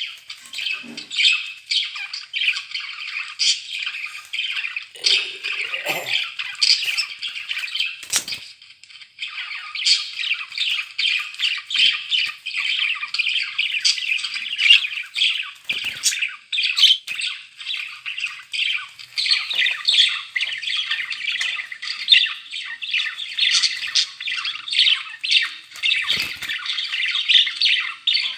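Several budgerigars chattering and warbling without a break, a dense jumble of squawks and chirps. A couple of sharp knocks come through, one about eight seconds in and one near the end.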